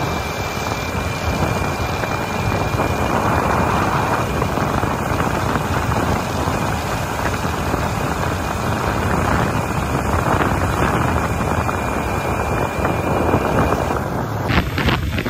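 Wind buffeting the microphone over the steady running of a motorcycle travelling at road speed. A few short clicks near the end.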